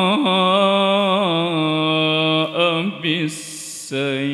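A male Quran reciter's voice through a microphone, drawing out the word "ja'a" (from "wa man ja'a") in a long, ornamented melodic note with a wavering pitch. The note breaks into short turns and stops about three seconds in. A quick hiss of breath follows, and then the voice starts the next phrase, "bis-sayyi'ati".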